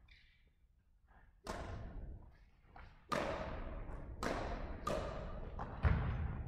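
Badminton rally: about five sharp racket hits on the shuttlecock, the first about a second and a half in and then roughly one a second, each echoing in the large hall.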